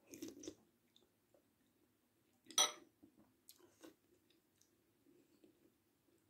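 Close-up eating sounds: a sip from a spoonful of mung bean soup at the start, then a sharp clink about two and a half seconds in as the metal spoon goes down into the ceramic bowl, followed by soft chewing and small clicks.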